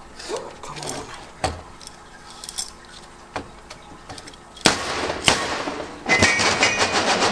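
Scattered metal clinks and taps as a steel setup bearing is worked down over a differential pinion shaft, a snug fit. About six seconds in, a fast, even mechanical rattle starts up and keeps going.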